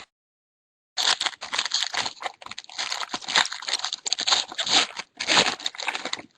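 A trading-card pack's wrapper being torn open and crinkled. It starts about a second in and goes on as a busy crackle of tearing and crumpling for about five seconds.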